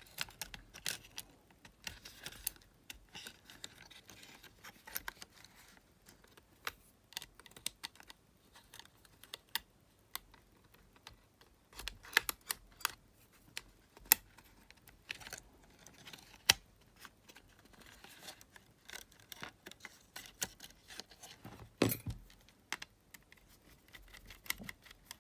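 Irregular small clicks and taps of plastic and metal parts as a Sony TCM-450 cassette recorder's mechanism and circuit board are handled and worked on with hand tools.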